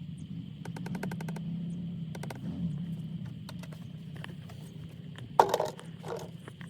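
Motor oil glugging out of a plastic quart bottle into an engine's oil filler, with bunches of sharp plastic clicks and one louder knock about five and a half seconds in.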